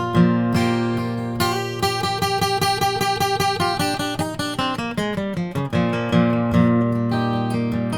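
Solo acoustic guitar playing an instrumental break, picked rather than strummed, over a steady bass. About a second and a half in, the melody turns into a fast run of single picked notes, which steps down in pitch a little before the sixth second before the bass pattern comes back.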